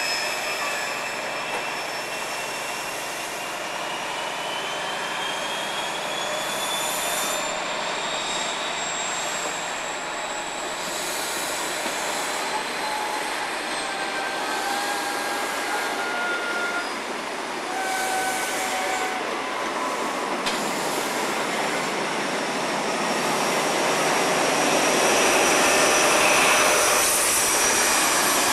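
A GNER InterCity 125's Mark 3 coaches rolling past on the rails with a steady rumble and a thin, high wheel squeal slowly rising in pitch, then short squeaks. It grows louder near the end as the Class 43 diesel power car comes by.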